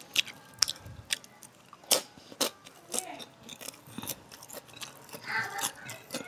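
A person chewing and biting food close to the microphone, with irregular crunches and wet mouth clicks as rice is eaten by hand.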